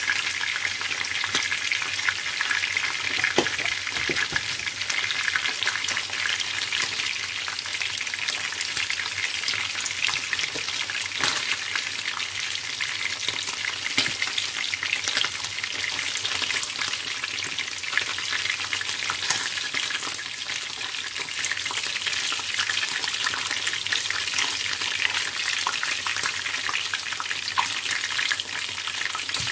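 Turkey pieces frying in hot oil in a stainless steel pan: a steady sizzle with constant fine crackling of the spattering oil.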